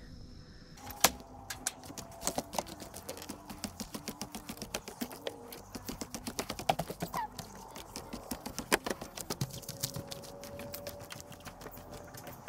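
Footsteps going down wooden stairs and onto a wooden dock: a quick run of knocking footfalls on the boards that thins out near the end.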